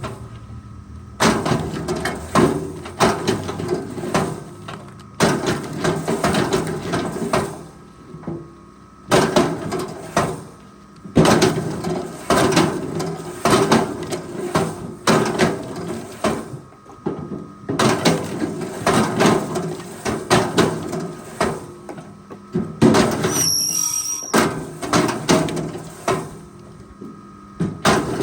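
Forestry machine at work: its engine runs steadily under repeated loud clunks and scraping bursts of metal and wood handling, with a brief high squeal about 23 seconds in.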